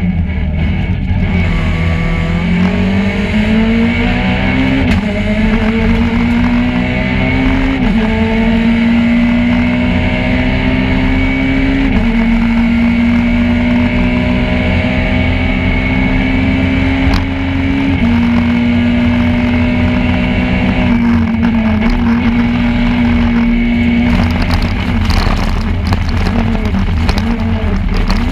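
Peugeot 208 R2 rally car's four-cylinder engine heard from inside the cabin, driven hard at high revs. The pitch climbs and drops sharply at each upshift, several times, and is held high for long stretches. Near the end the revs rise and fall quickly as the driver lifts off and changes down.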